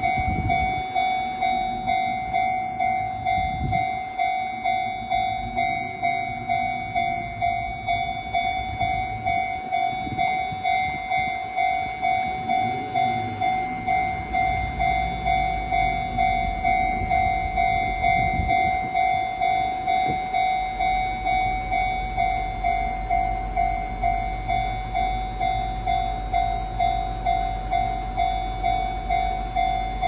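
Japanese railway level-crossing alarm, the newly renewed electronic 'Chichibu-tone' warning bell, ringing a steady, evenly repeating ding that warns a train is approaching. A low rumble builds beneath it from about halfway through.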